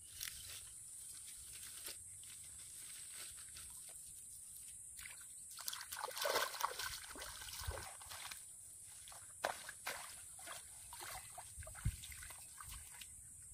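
Muddy shallow water sloshing and trickling, with rustling and crunching of uprooted water plants being pulled and handled; the busiest, loudest stretch comes about six seconds in, with a few sharp knocks later, over a steady high hiss.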